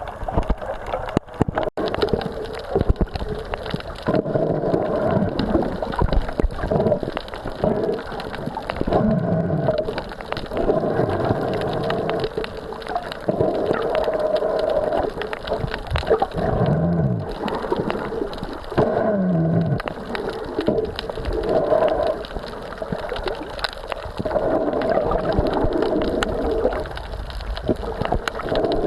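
Sea water sloshing and gurgling in repeated surges every second or two.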